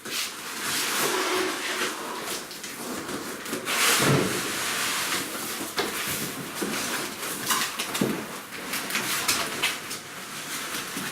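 Cardboard packing carton being handled and pulled off: irregular scraping, sliding and rustling of the cardboard, with heavier knocks about four and eight seconds in.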